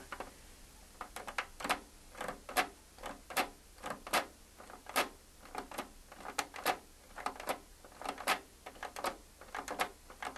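Clicking of the push-button switches behind the Nordmende PA 7060 amplifier's digital volume knob as it is rocked back and forth, each click one 2 dB step of the volume. A string of light, irregular clicks, two or three a second.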